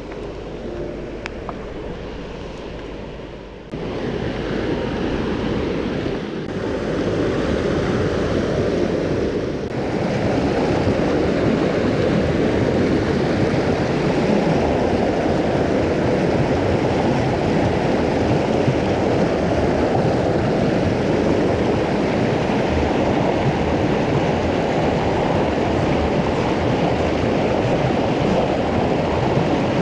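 River water rushing, a steady noise that gets louder in three steps over the first ten seconds and then holds.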